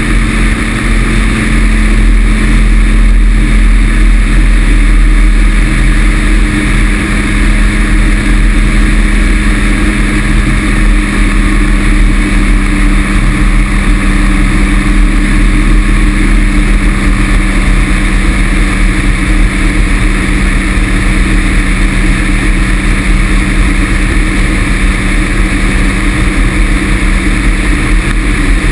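Rotax 447 two-cylinder two-stroke engine of a Pegasus XL microlight trike running steadily in flight, a constant buzzing hum, under heavy wind rush on the wing-mounted camera.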